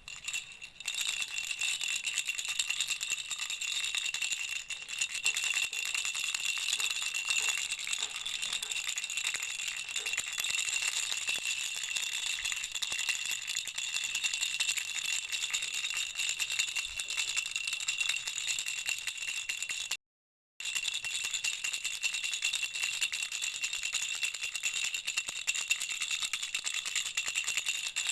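Baby rattle shaken steadily and continuously, a dense rattling with a jingling ring. It cuts out for about half a second some twenty seconds in, then carries on.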